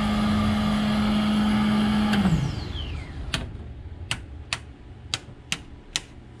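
An electric motor in the race car hums steadily, then is switched off about two seconds in and spins down with a falling whine. Then six sharp clicks follow as the dash panel's switches are flipped off one by one.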